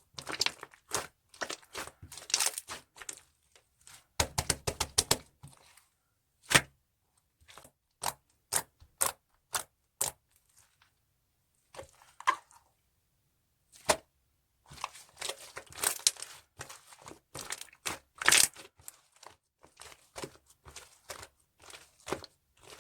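Hands squishing and stretching banana-milk slime. It makes irregular runs of crackles and clicks, with a few single sharp pops.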